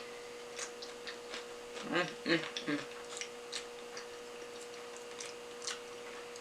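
Close-up mouth sounds of chewing sushi: scattered small wet clicks and smacks, with a brief voiced murmur about two seconds in, over a faint steady hum.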